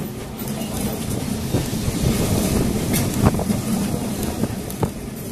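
A traditional Lisbon tram running along street track, heard from inside the car: a steady low rumble and rattle, with a few sharp knocks, the loudest about three seconds in.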